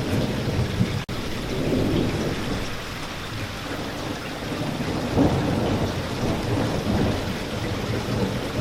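Steady rain with thunder rumbling underneath, the rumble swelling about two seconds in and again around five seconds. The sound cuts out for an instant about a second in.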